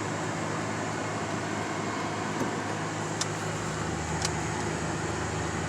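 Steady engine hum and road noise inside the cabin of a 2001 Honda Odyssey minivan, its V6 held at about 2,000–3,000 RPM while pulling gently. A lower engine note joins about two-thirds of the way through, and there are a couple of light clicks near the middle.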